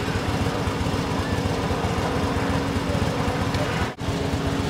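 An engine running steadily: a constant hum over a low, uneven rumble.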